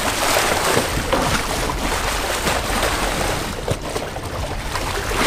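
Bull shark thrashing at the surface beside the boat, splashing and churning the water in irregular bursts.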